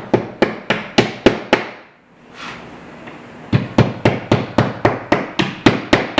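Hammer tapping plastic wall anchors into drilled holes in the wall, in quick even strikes about four a second. There are two runs of taps with a pause of about two seconds between them.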